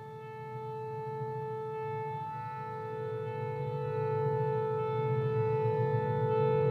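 Electric guitar drone played through effects and amplifiers: layered held tones over a low rumble, swelling steadily louder, with a brief break in the main tone about two seconds in.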